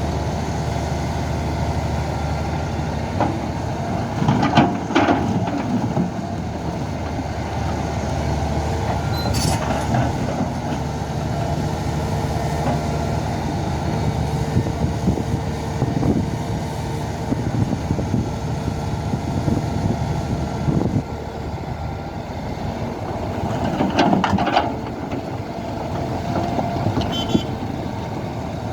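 SANY hydraulic excavator's diesel engine running steadily under working load, with a steady faint tone above it. Two louder rough surges of clatter come about five seconds in and again about twenty-four seconds in.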